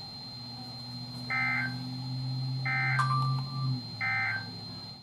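Emergency Alert System end-of-message signal: three short bursts of warbling SAME data tones, about 1.3 seconds apart, marking the end of the alert broadcast. A faint steady high tone and a low hum run underneath.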